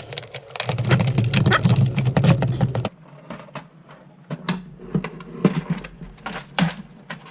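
A small electric motor, a powered screwdriver backing out the case screws of a desk phone, whirs steadily with clicking and cuts off suddenly about three seconds in. Scattered clicks and knocks of plastic parts being handled follow.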